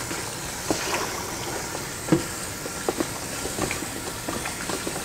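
Kitchen tap running while raw chicken pieces are rinsed: a steady rush of water with scattered knocks.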